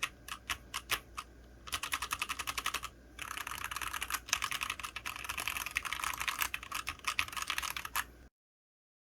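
Typing on a KBDfans Endless-80 mechanical keyboard with an aluminium plate, Everglide Aqua King V3 linear switches and doubleshot ABS keycaps. A few single keystrokes come first, then fast continuous typing with a brief pause in the middle. The sound cuts off abruptly shortly before the end.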